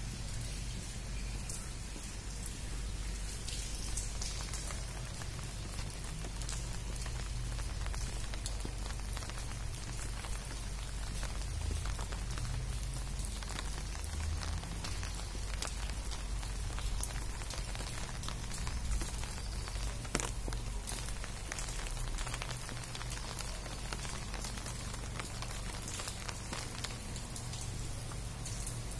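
Steady rain falling on wet pavement and standing water, with many small drop ticks over a steady low rumble.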